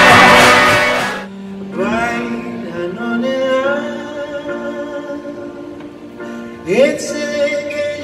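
Loud live band music cuts off about a second in. A man then sings slowly and softly over a piano, holding long notes and sliding up into a higher note near the end.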